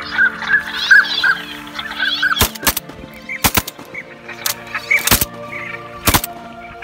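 Ducks calling in quick repeated notes, then a volley of shotgun shots from two guns, about eight shots, several in close pairs, over a steady music bed.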